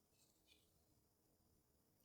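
Near silence, with two faint small ticks in the first half second.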